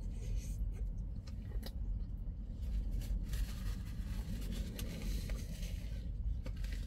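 A person chewing a bite of a breaded chicken sandwich, with scattered small clicks and crunches over a low, steady rumble inside a car's cabin. A paper napkin rustles near the end.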